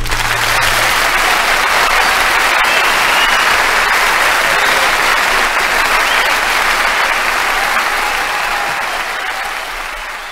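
Live concert audience applauding as the song ends, with the last acoustic guitar chord's low note ringing under it for about the first second. The applause then thins out near the end.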